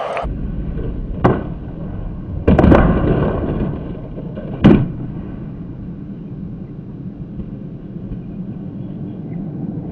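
Skateboard wheels rolling on concrete with a steady rumble. A sharp pop about a second in, a louder clatter around two and a half seconds, and a loud board-and-wheels landing slap near five seconds.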